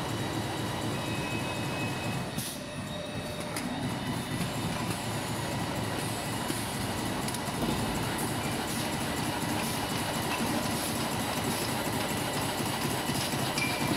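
HSCG 450X2 T-shirt bag making machine running steadily in production: a dense, even mechanical rattle from its heat-sealing and cutting cycle, with a faint high steady tone over it.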